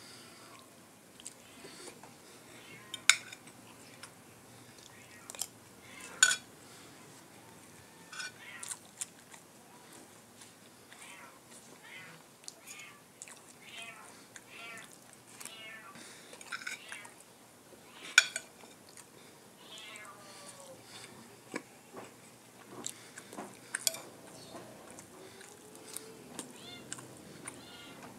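Steel spoon and fork clinking and scraping on a ceramic plate of rice, with a few sharp clinks several seconds apart and softer chewing between them. A cat meows several times in the background.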